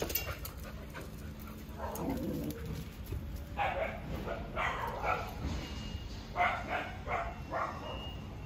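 A dog barking in short bursts: a quick run of about three barks around the middle, then another run of about four a little later.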